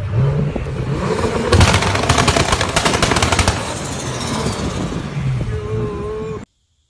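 2007 BMW 335i's twin-turbo inline-six engine revving, then its exhaust popping and crackling in a rapid string of sharp bangs, like gunfire, for about two seconds. The sound cuts off abruptly near the end.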